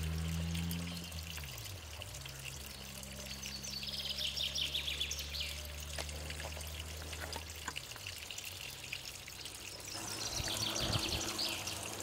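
Water from a garden stream trickling and splashing over stones and pond liner, with brighter splashing spells about four seconds in and again near the end. Low steady tones hum underneath until about eight seconds in.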